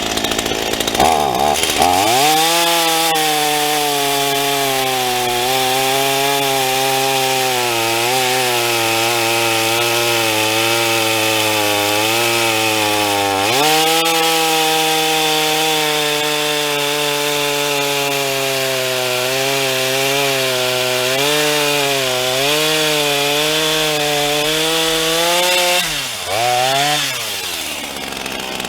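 Black Max 38cc two-stroke chainsaw cutting through a log at full throttle, its pitch dropping as the chain bites in and wavering under load through a knot. The engine speeds up sharply about halfway through, and near the end it falls, revs once briefly and drops away as the cut finishes.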